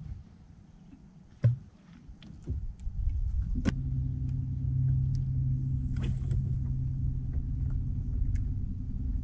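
Bass boat's electric bow-mounted trolling motor running: a steady low hum over a rumble, coming on with a click a little over a third of the way in. A single sharp knock sounds shortly before it.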